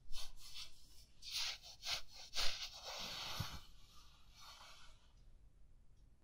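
Bedding rustling as blankets are pulled up and tucked in around someone, a series of soft fabric swishes that thin out and fade after about four or five seconds.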